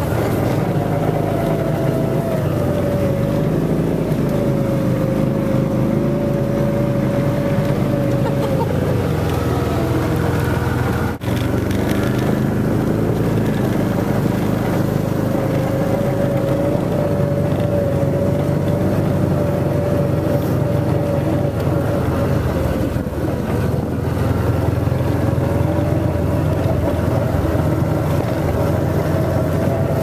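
John Deere Gator utility vehicle running steadily while driving, its engine drone under a high whine that wavers slightly with speed.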